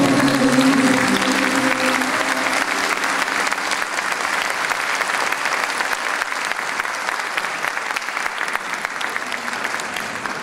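Concert audience applauding, a dense even clapping that slowly eases off. The last note of the song, from voice and instruments, dies away in the first second or two.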